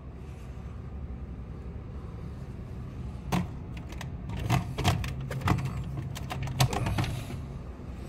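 Plastic clicks and knocks from a Mr. Coffee single-serve coffee maker being handled and its top opened, several sharp taps about halfway through, over a steady low hum.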